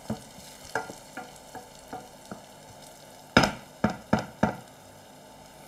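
Chopped onions, softened to translucent, sizzling gently in sunflower oil in a frying pan while a wooden spoon stirs them with soft scraping ticks. A little past halfway come four sharp knocks in quick succession.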